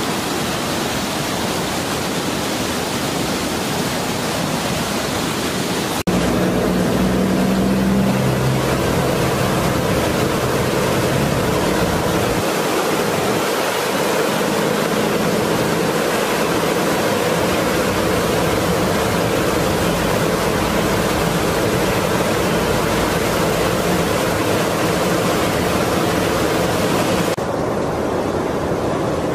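Swollen, flooding river rushing: a steady, loud noise of fast-moving water, including water pouring over a weir. The sound changes abruptly about six seconds in and again near the end.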